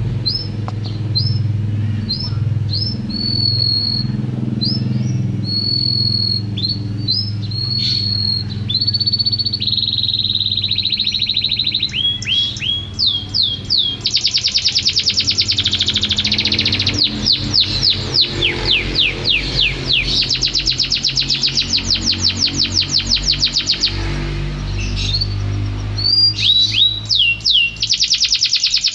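Domestic canary singing: repeated short, falling whistled notes, which about halfway through give way to long, fast rolling trills. A low background hum runs underneath.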